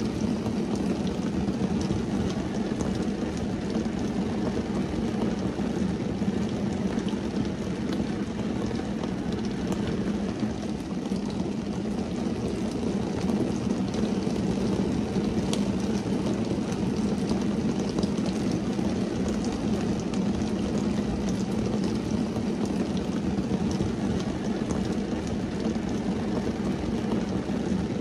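Steady rain falling on a car's windscreen and roof, heard from inside the car: an even, low drumming hiss with faint ticks of single drops.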